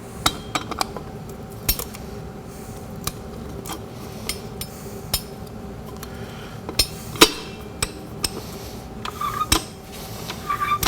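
Steel automatic-transmission parts clinking and knocking as they are handled and set into place: irregular light clicks, the loudest about seven seconds in, over a faint steady hum.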